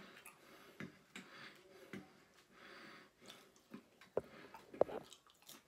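Eating sounds from a taco salad: a fork clicking and tapping on the plate, with chewing and breathing between. Two sharper clicks near the end are the loudest.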